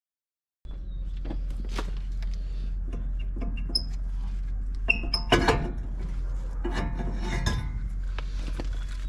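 Scattered light metallic clinks and clatter of tools and parts being handled, louder clusters about five and seven seconds in, over a steady low hum.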